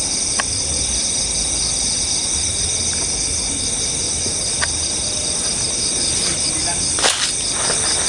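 Night insect chorus: a steady, shrill trilling of several high pulsing layers. A few faint clicks and a short knock about seven seconds in.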